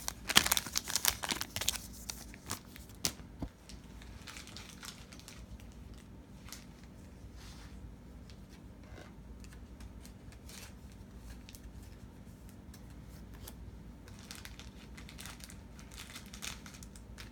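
Thin plastic trading-card sleeve crinkling and rustling as a card is worked into it. The rustling is densest and loudest for the first couple of seconds, then comes in scattered fainter rustles, with a few more near the end.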